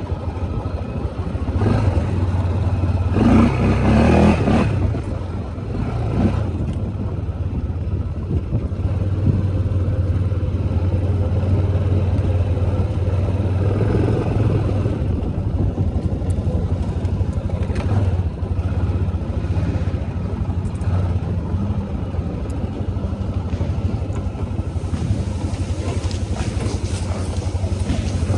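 ATV engine running steadily while riding, with a louder surge about three to four seconds in and a few sharp knocks later on.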